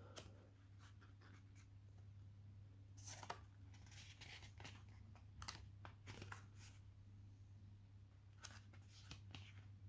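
Faint rustling of paper as the pages of a perfect-bound booklet are turned by hand: a scattering of soft page swishes and small handling clicks over a low steady hum.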